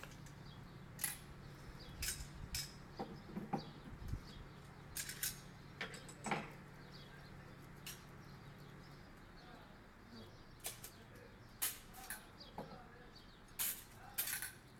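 M16 rifle being stripped by hand: its metal parts click and clink in scattered sharp clicks. A low steady hum sits under them and fades out about nine seconds in.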